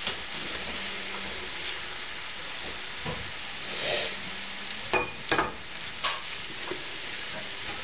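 Cabbage and Spam frying in bacon grease in a cast-iron skillet, a steady sizzle throughout. A serving spoon scoops from the pan, knocking and scraping against the skillet and a glass bowl a few times from about three seconds in.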